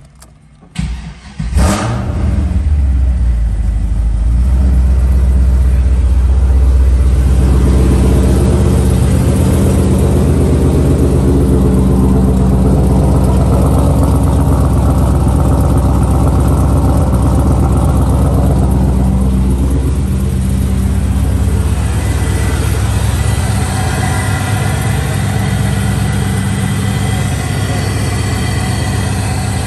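2002 Camaro SS's 5.7-litre LS1 V8 cold start: the starter cranks briefly about a second in, the engine catches with a short rev flare, then settles into a steady fast cold idle that eases down slightly about twenty seconds in.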